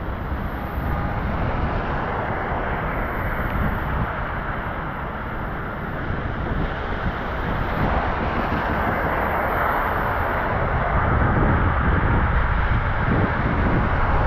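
Steady rain with car tyres hissing on a wet road, getting a little louder in the last few seconds.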